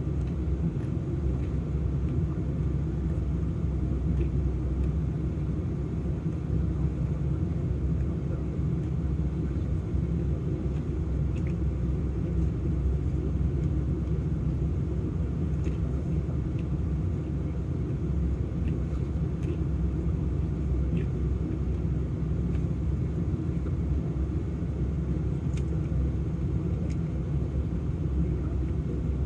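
Vehicle engine idling, a steady low rumble heard inside the cab, with a few faint scattered clicks.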